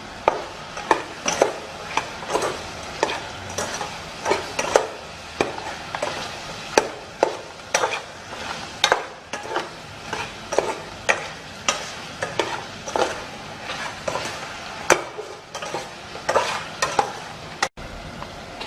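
A metal utensil stirring food in a cooking pan, clinking and scraping against it about twice a second, over a steady sizzling hiss.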